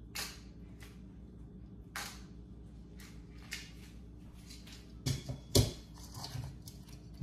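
Scattered sharp clicks and clatters of live blue crabs' shells and claws being handled in a metal mesh colander, with a few louder knocks about five seconds in.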